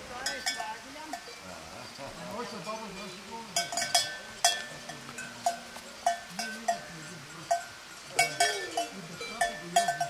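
Cowbell clanking in uneven strikes, each ringing briefly, sparse at first and coming thick and fast from about three and a half seconds in.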